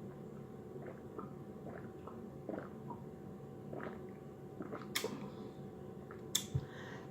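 Close-up mouth sounds of eating honey buffalo chicken wings: soft, wet chewing and lip-smacking clicks every second or so, with two sharper clicks near the end.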